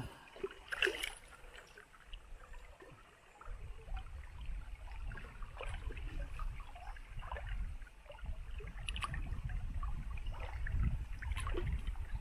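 River water lapping and gurgling around a small boat, with scattered faint light knocks and splashes. A low, uneven rumble sets in a few seconds in.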